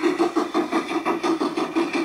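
Steam chuffing from the built-in Dietz sound module of a G-scale model of a D&RGW C-16 Consolidation steam locomotive, an even beat of about four chuffs a second played through the model's small loudspeaker as the train runs.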